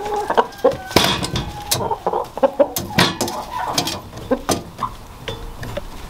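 Chickens clucking while feeding at a metal feeder, with short calls mixed with sharp clicks and taps, the loudest about a second in and again around three seconds.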